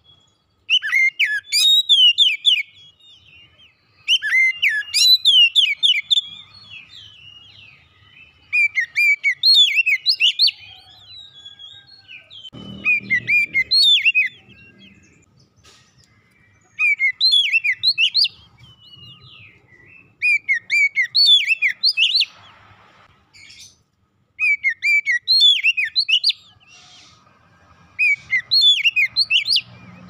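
Oriental magpie-robin singing: a run of repeated phrases of rapid, high whistles and trills, each lasting about two seconds, with short pauses between phrases.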